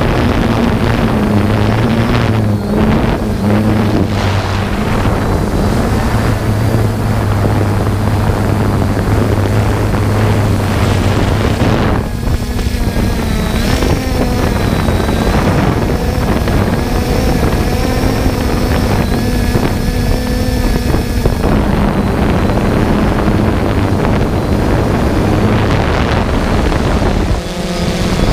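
Small drone's electric motors and propellers running steadily in flight: a loud, steady low hum with higher whining tones, and wind rushing over the on-board microphone. From about 12 to 21 seconds in, the higher whine stands out more clearly.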